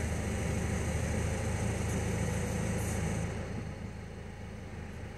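Peugeot Partner's 1.6 HDi four-cylinder diesel idling just after a cold start, heard from inside the cab: a steady low hum that settles a little quieter about three and a half seconds in.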